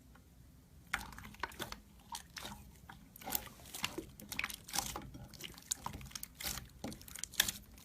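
Slime being squeezed and poked by hand, giving irregular sticky popping and crackling clicks, several a second, starting about a second in.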